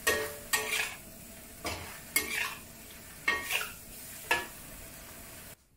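Metal spatula scraping and tossing beancurd skin and vegetables around a wok over a steady sizzle, about six separate strokes, some with a brief metallic ring. The sound cuts off suddenly near the end.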